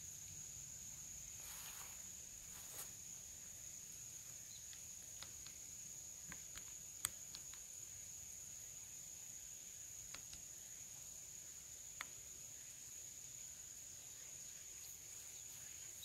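Faint, steady high-pitched insect drone, one unbroken tone. Over it, scattered light crackles and clicks of footsteps on dry fallen bamboo leaves, with two sharper clicks about seven and twelve seconds in.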